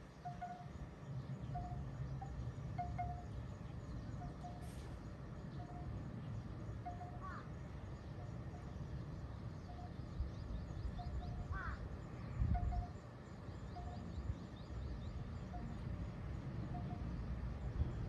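Outdoor ambience: a steady low wind rumble, a short clear note at one pitch repeated about once a second throughout, and a couple of quick bird chirps with faint high twittering in the middle.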